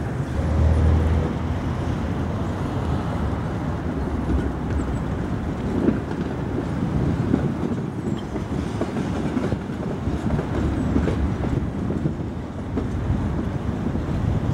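Tatra T3 trams rolling over the tracks with a continuous low rumble. A heavy low hum comes about a second in, and the wheels knock sharply over rail joints a few times.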